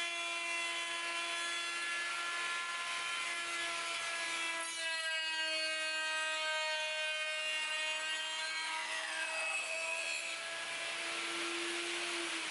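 Handheld router running at a steady high whine as its bit trims the edge of a round maple tabletop on a circle-cutting jig, with the hiss of the bit cutting wood. The whine dips briefly in pitch about four and a half seconds in.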